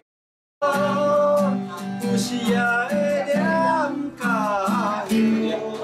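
Acoustic guitar played with a man singing a slow song over it. It starts after a half-second gap of silence.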